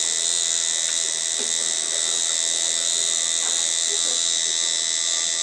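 Electric tattoo machine buzzing steadily as the needle works into skin.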